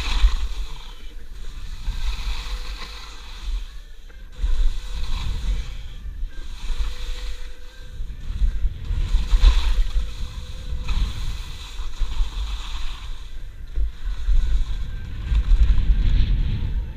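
Wind noise rumbling on a skier's action-camera microphone, with skis hissing and scraping over the snow in surges every couple of seconds as the skier turns.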